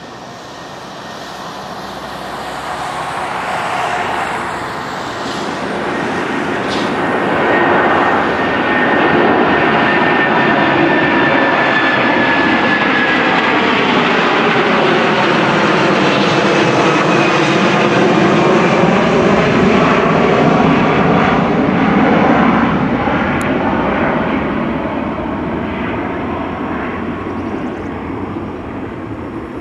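Airbus A330-300 airliner's Rolls-Royce Trent 700 turbofans at takeoff thrust as it climbs out and passes overhead. The jet noise builds over the first several seconds, stays loud, then fades near the end, with a high whine that slides slowly down in pitch.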